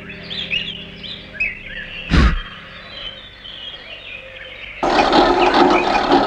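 Cartoon soundtrack of small birds chirping, with a low thump about two seconds in. Near the end comes a loud burst of harsh noise lasting over a second.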